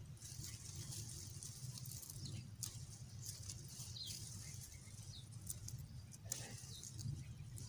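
Faint rustling and snapping of fresh coriander stems being picked by hand from a garden bed, a few sharp clicks among them, with a few faint bird chirps.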